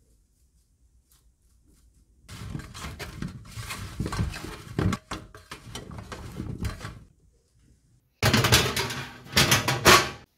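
Hands tossing seasoned cauliflower florets on a metal baking tray: a few seconds of rustling and soft knocking. Near the end comes a louder metallic scrape and clatter as the baking tray is slid onto the oven rack.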